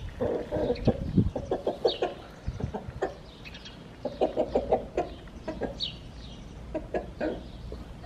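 Light Brahma chickens clucking in several quick runs of short notes.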